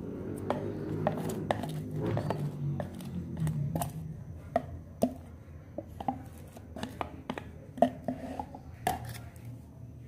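Kitchen utensil knocking and scraping as chopped onion is tipped into a glass bowl: a string of sharp clicks and knocks, about one or two a second.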